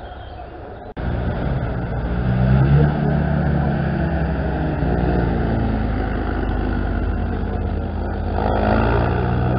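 Military jeep's engine running as it drives along a dirt track, starting suddenly about a second in; its pitch and loudness rise between two and three seconds in, hold steady, then rise again near the end.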